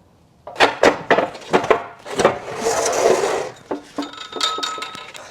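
A crank handle being fitted onto a drill press's table-raising crank: a quick run of metal clicks and knocks, a scraping rub in the middle, then clinks with a brief metallic ring near the end.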